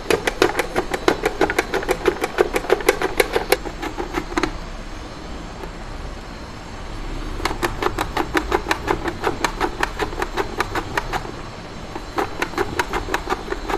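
Peeled raw banana being slid back and forth over the blade of a plastic mandoline slicer, cutting thin chips. It makes a quick rhythmic clacking of about six strokes a second, in three runs with short pauses between them.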